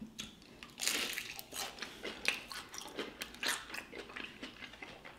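Crispy fried spring roll being bitten and chewed close to the microphone: a first crunchy bite about a second in, then uneven crackling crunches as it is chewed.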